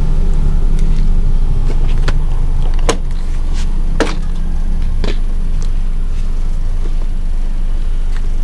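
Plastic trim and cargo floor panels in the back of a Toyota Avanza being opened and handled: several sharp clicks and knocks about a second apart through the middle, over a steady low rumble.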